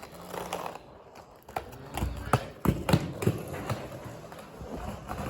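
A run of irregular knocks and thumps on a barn floor, clustered in the middle, with a few heavier thuds among them.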